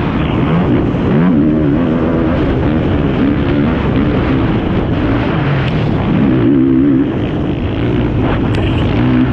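Yamaha YFZ450R quad's single-cylinder four-stroke engine running hard under racing load, its pitch climbing and dropping over and over as the throttle is worked.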